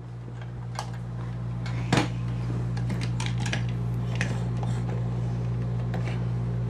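Light plastic clicks and knocks as toy vehicles are handled and set down on a tabletop, with one sharper knock about two seconds in, over a steady low hum.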